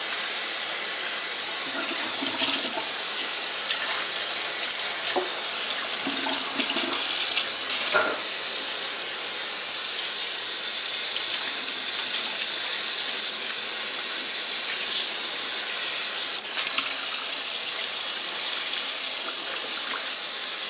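Bathroom sink tap running steadily, the water splashing over a wig being soaked under it, with a few faint knocks.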